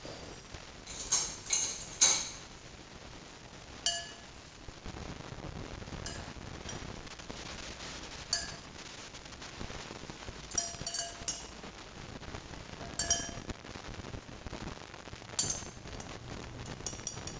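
Clinks and taps of a utensil against a food chopper's bowl and a plate as the ground contents are scraped out. They come in short ringing clusters every second or two, loudest near the start.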